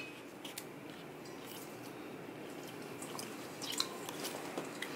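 Mostly quiet, with faint squishing and a few light clicks, more of them near the end, as a lemon half is squeezed by hand over raw cod fillets in a stainless steel bowl.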